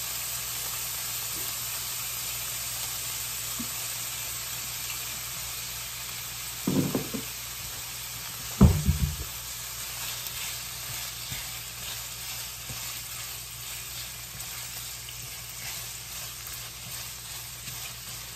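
Chicken breast pieces sizzling in olive oil in a nonstick frying pan, with two short thumps a couple of seconds apart midway. In the second half a silicone spatula stirs and scrapes the pieces around the pan.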